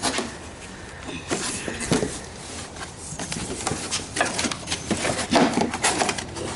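A cardboard box being opened and its packaging handled: irregular rustles, scrapes and knocks, busier and louder in the second half.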